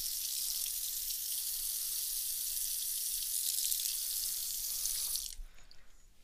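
Tap water running into a sink as a pocket knife is rinsed under it: a steady hiss that is shut off about five seconds in.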